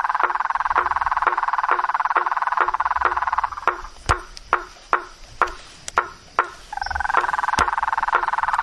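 Frogs calling: a continuous trilling chorus that breaks off for about three seconds in the middle, over a steady call of sharp clicks about twice a second.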